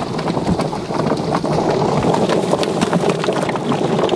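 Rotary drum chicken plucker running: a steady motor hum with fast, irregular knocking and slapping as a scalded bird is spun against the rubber plucking fingers.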